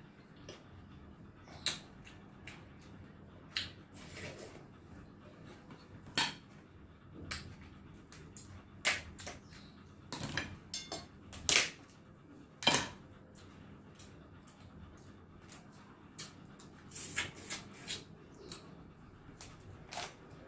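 A person eating crab close to the microphone: irregular sharp clicks and cracks, a few louder ones around the middle, with small smacks in between.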